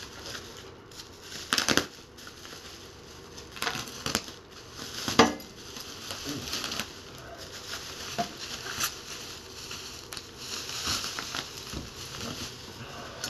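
Packaging being handled and opened: crinkling, crackling rustle of bags and wrapping, with a few sharp louder crunches, the loudest about five seconds in.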